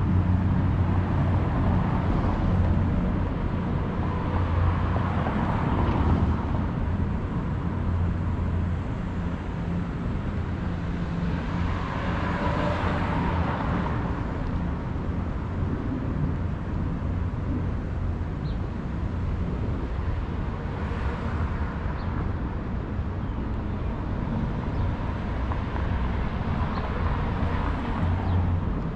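Street traffic: a steady low rumble of road vehicles, swelling several times as vehicles pass, the strongest swell a little before the middle.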